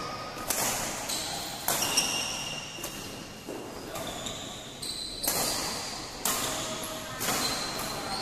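Badminton racket strikes on a shuttlecock during a rally: sharp hits at irregular intervals of about half a second to a second, each echoing in the large hall.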